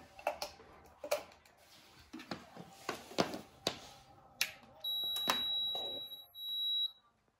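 Clicks and knocks of a power cable being handled and plugged into an Urevo U1 walking pad, then the walking pad's power-on beep: a long high electronic beep followed after a brief gap by a shorter one, as its display lights up.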